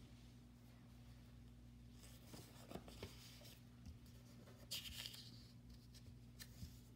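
Faint scratching of a pen writing on paper, in short spells about two to three seconds in and again near five seconds, over a steady low hum.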